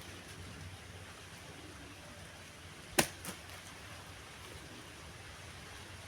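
A sharp click or knock about halfway through, followed a third of a second later by a smaller one, over a steady low hiss.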